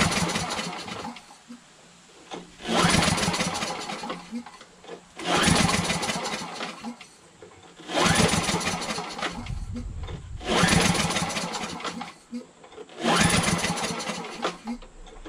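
Craftsman 8 hp snowblower engine being pull-started over and over without catching: six yanks of the recoil cord about every two and a half seconds. Each pull spins the engine over briefly and the sound dies away. It turns over very easily, like there's no compression, which the owner suspects is a sign that something is wrong inside the engine.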